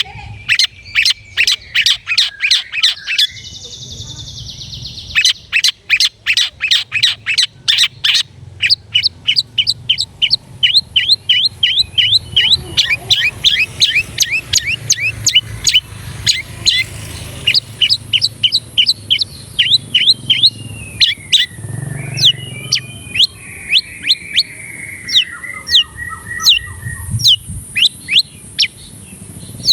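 Long-tailed shrike (cendet) singing a loud, fast song: long runs of sharp repeated notes, at first about three a second, then quicker rows of short downslurred notes. A gliding, warbled phrase comes about three quarters of the way through, typical of the cendet's song packed with mimicked calls ('isian').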